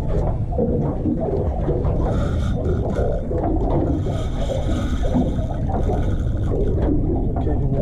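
Wind buffeting the microphone as a low rumble, with a faint whining whir from a spinning reel under load while a hooked fish is fought on a bent rod, from about two to seven seconds in.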